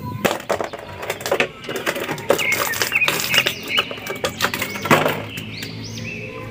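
Thin clear plastic blister packaging crinkling and crackling in a run of sharp crackles as an action figure is worked out of its tray, stopping about five seconds in. Birds chirp in the background.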